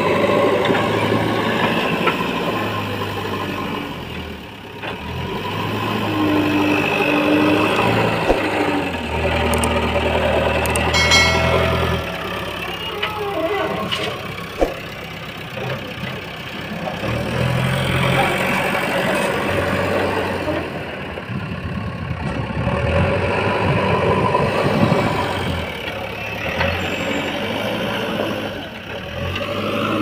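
JCB backhoe loader's diesel engine running close by, its speed and loudness rising and falling every few seconds as the machine works with its bucket.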